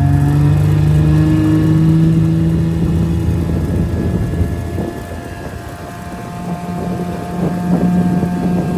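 Small Evinrude 6 hp outboard motor running a jon boat under way. Its pitch rises slightly at first, then the engine tone fades under rushing water and wind noise about four to six seconds in, and it picks up and grows louder again near the end.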